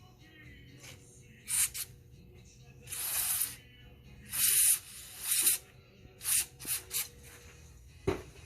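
Carburetor cleaner sprayed from an aerosol can in about eight short hissing bursts, some brief and some lasting about half a second, while the carburetor's passages are being cleaned. One sharp click comes near the end.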